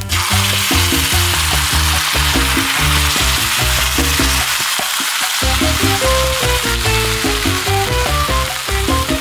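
Curry sauce sizzling and bubbling in a hot cast-iron skillet, a steady hiss, with background music playing underneath.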